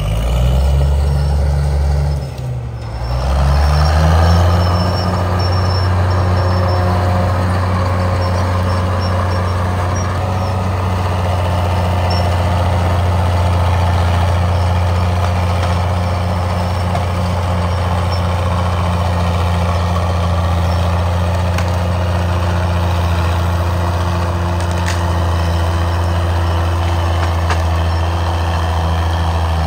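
Caterpillar D5 bulldozer's diesel engine running steadily as the dozer pushes brush and small trees, with a short dip in the sound about two and a half seconds in.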